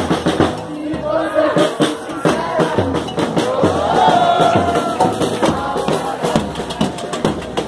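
Carnival street band playing, drums beating steadily while a crowd sings along.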